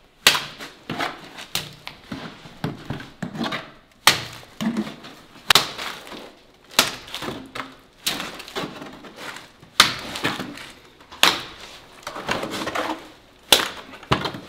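Thin mortar being thrown on by hand as spatterdash: a trowel scooping from a bucket and flicking mortar onto a brick wall, over and over. There is a sharp clack about every second and a half, with scraping between.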